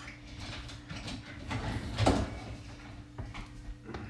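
Plastic spatula stirring meatballs in sauce in a stone-coated frying pan, scraping and knocking against the pan, with a louder knock about two seconds in.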